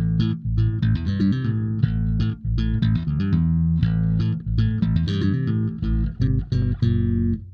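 Instrumental outro music: quick plucked guitar notes over a bass guitar line, stopping near the end.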